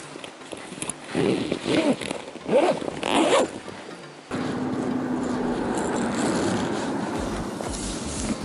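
A bag's zipper pulled shut in a few quick strokes, then a steady muffled rustle from about four seconds in, with the camera closed inside the bag.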